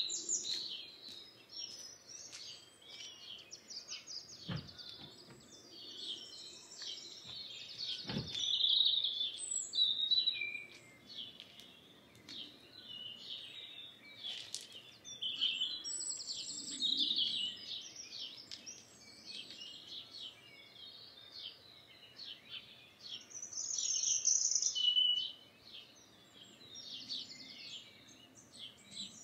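Dawn chorus: many songbirds singing over one another in quick, varied phrases, a song thrush among them, over a faint low background rumble. Two brief knocks about four and eight seconds in.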